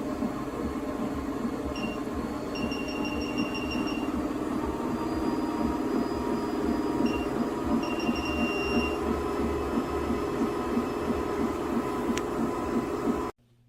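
Electric under-desk treadmill running: a steady motor hum with the belt's rumble underneath. Short high electronic beeps come singly and in quick runs, and the sound cuts off suddenly near the end.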